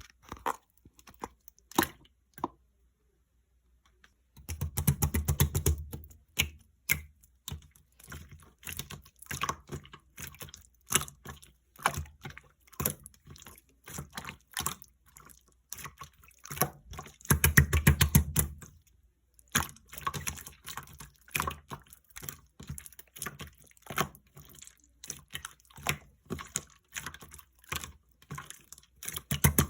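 Clear slime being handled by hand, giving rapid wet clicks and pops, with three longer, fuller squishing spells: about four seconds in, midway, and at the end.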